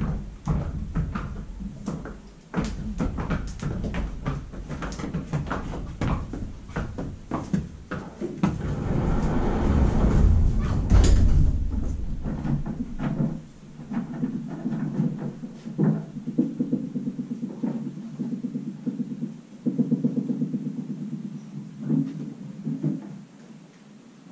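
A horse's hooves clopping on a concrete barn aisle as it is led into a stall, followed about ten seconds in by a sliding stall door rolling on its track with a long rumble. Scattered knocks and shuffling come after.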